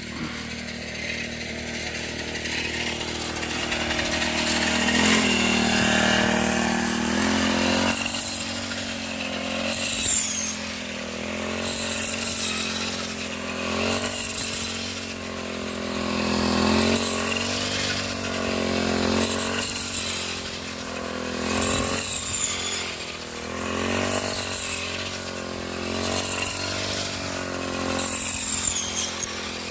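A small wheat combine harvester's engine runs loudly under working load. Its pitch dips and recovers about every two seconds as the load changes, with occasional high squeals over the top.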